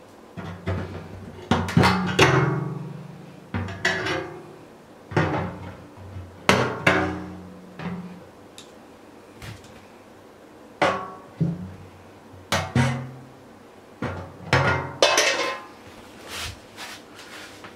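Sharp metallic clicks and snaps, about a dozen, spaced irregularly, as end-cutting nippers bite through and break away the sheet metal between drilled holes in a metal pail lid. Background music with plucked string notes plays underneath.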